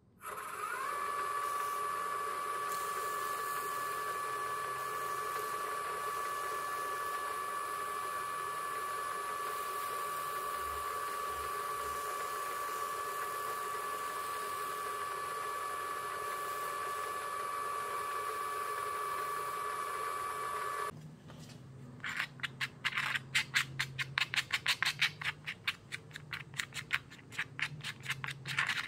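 Shopsmith drill press motor spinning up and then running with a steady whine while a sanding block is held against the spinning wooden plane knob to strip its old finish. About two-thirds of the way through it stops, and a quick run of short hand rubbing or scraping strokes on cardboard follows.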